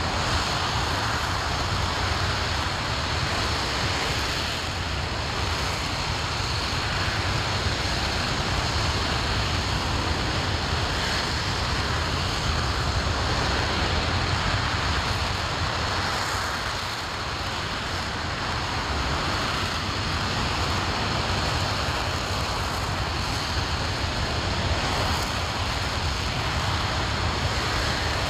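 RS-25 liquid-hydrogen rocket engine firing during a ground hot-fire test: a continuous rushing noise over a deep rumble, holding steady throughout.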